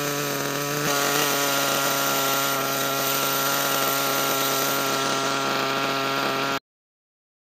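RC monster truck's small engine idling steadily. It gets slightly louder about a second in and cuts off abruptly near the end.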